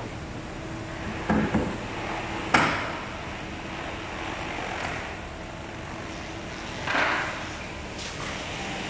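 Steady room hum with scattered handling knocks and clatter: a couple of knocks about a second and a half in, one sharp clack a second later, and a brief scraping rush about seven seconds in.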